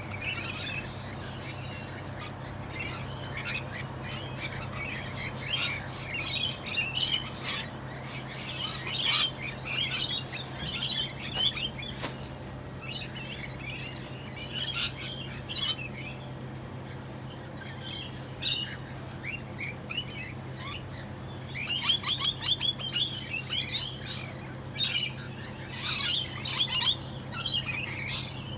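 Several parrots chirping and squawking in quick, scattered calls, busier in a few bursts.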